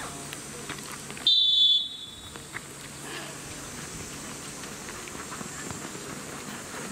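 Referee's whistle: one short, shrill blast of about half a second, signalling play to restart.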